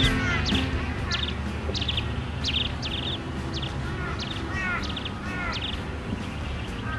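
Birds calling over a steady outdoor background: one bird repeats a short call again and again, more than once a second, each a quick high note followed by a rapid stutter, and a lower chirping call joins about four seconds in.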